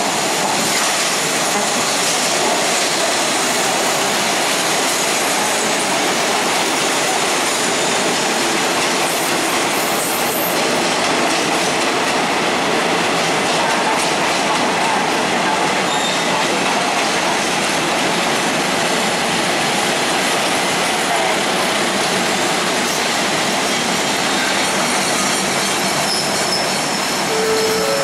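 Trains running past close by on the station tracks: the steady, loud rumble and rattle of steel wheels and coaches over the rails, as a diesel railcar set and a train of passenger coaches pass each other.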